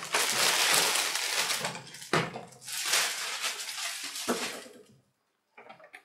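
Plastic wrapping crinkling and rustling as it is pulled off a robot vacuum, in two long stretches, each cut by a light knock. It stops about a second before the end.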